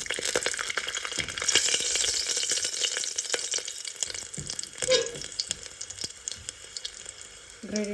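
Tadka: garlic cloves, cumin seeds, asafoetida and a clove sizzling and crackling in a tablespoon of hot vegetable oil. The sizzle is strongest a second or two in and dies down toward the end.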